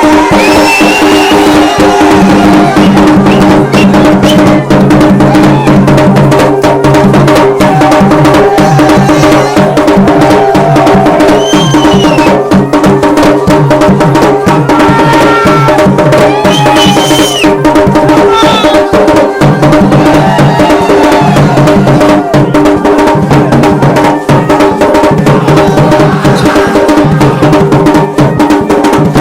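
Garhwali dhol and damau drums played in a fast, dense rhythm over steady held tones. The level is loud throughout.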